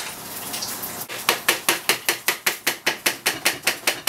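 A kitchen utensil beating a thick mascarpone and condensed-milk mixture in a mixing bowl, clicking against the bowl about seven times a second from about a second in.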